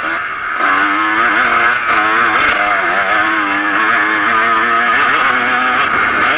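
Kawasaki KX125 125cc two-stroke single-cylinder motocross engine running hard under way, its pitch rising and falling repeatedly with throttle and gear changes. The revs pick up sharply about half a second in.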